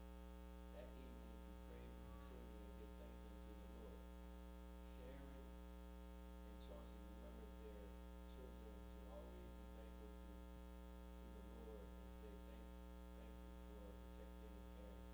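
Near silence: a steady electrical mains hum, with faint, indistinct voices underneath.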